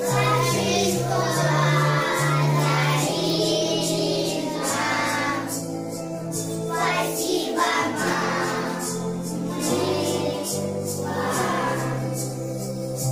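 A group of young children singing a song together over instrumental backing music with a steady bass line.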